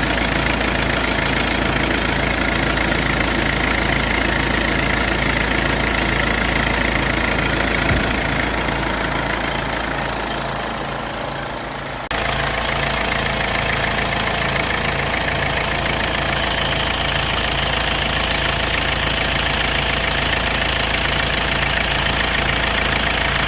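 Mercedes-Benz 220D diesel engine idling steadily with an even, rhythmic clatter. The sound dips slowly around the middle and then cuts back in abruptly about twelve seconds in.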